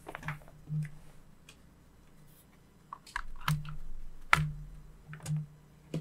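Large fabric desk mat being unrolled and laid flat on a wooden desk, with rustling and soft slaps and a handful of sharper handling knocks; the loudest knock comes about four and a half seconds in.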